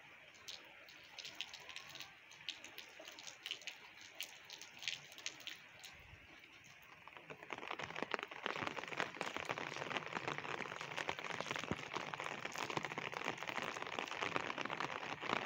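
Steady monsoon rain falling on a wet brick rooftop. At first it is scattered drops ticking, then from about halfway it becomes a dense, louder patter.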